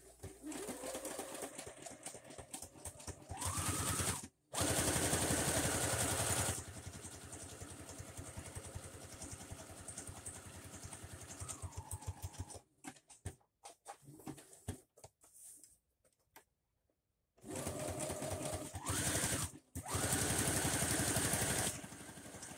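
Electric sewing machine zigzag-stitching through layered paper, running in spurts. It speeds up with a rising whine and runs fast for about two seconds, then runs more slowly. It stops for a few seconds in the middle with only scattered clicks, and runs again in two short spurts near the end.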